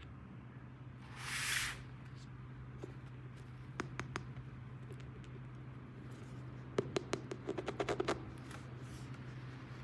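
Plastic toy pieces and packaging handled during an unboxing: a brief rustle about a second in, a few light clicks, then a quick run of clicks and taps near the end, over a low steady hum.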